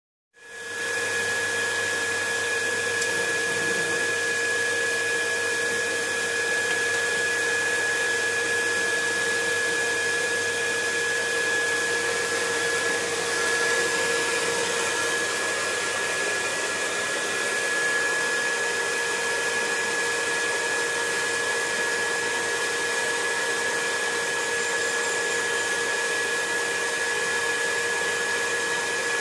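Handheld butane cartridge torch burning with a steady hiss, a thin whistling tone running through it, as its flame heats the joints of a copper tube frame. It starts about half a second in and holds level throughout.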